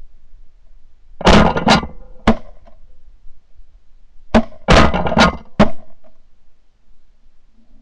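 Shotgun shots from several hunters: three quick blasts, a pause of about two seconds, then four more in quick succession.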